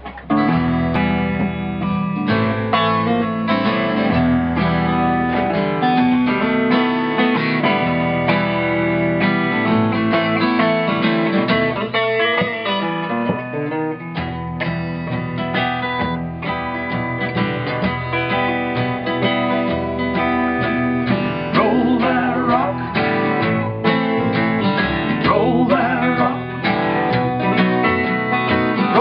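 Instrumental introduction of a country-style rock song led by strummed acoustic guitar.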